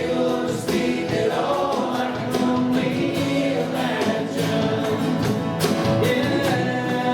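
Worship band playing gospel-style Christian music, with singing voices.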